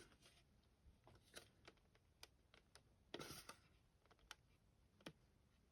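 Near silence with faint, scattered clicks and taps of hard plastic model-kit parts being handled, and a brief scrape about three seconds in.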